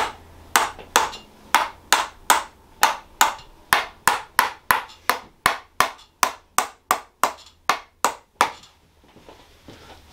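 Tok sen hammer massage: a red mallet tapping a wooden tok sen stick held against a person's lower back, a run of sharp taps at about two a second that quickens to about four a second, then stops about a second and a half before the end.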